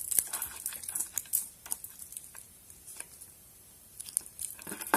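Metal lock pick scraping and clicking inside the keyway of a vintage Yale padlock, a scatter of short, sharp scratchy ticks, with a quieter stretch a little past the middle.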